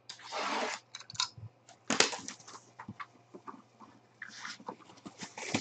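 Box cutter slitting the plastic shrink wrap on a sealed trading-card box: a hissing scrape of about half a second at the start, then crinkling plastic and sharp taps and clicks of hands on the cardboard box.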